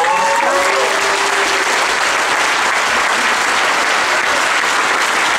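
Large crowd applauding steadily, with a few voices cheering in the first second or so.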